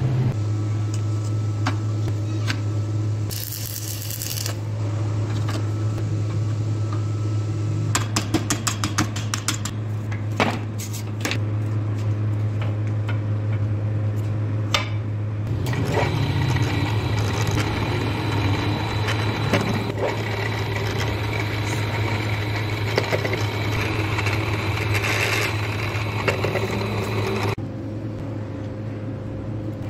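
Steel parts clinking and knocking as they are handled, over a steady low hum. A longer stretch of rasping mechanical noise fills the second half and stops near the end.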